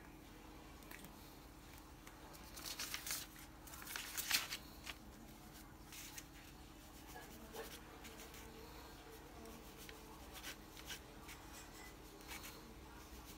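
Rustling handling noise for a couple of seconds, then a ballpoint pen scratching faintly across paper in short strokes as a signature is written.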